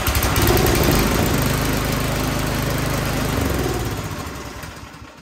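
Troy-Bilt snowblower engine running steadily just after starting on prime without choke, now firing on its newly replaced ignition coil. The sound fades away over the last second or so.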